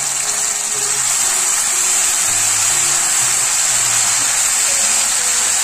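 Ginger-garlic paste and cumin seeds sizzling loudly in hot oil in a kadhai, a steady frying hiss. Soft background music with held low notes plays underneath.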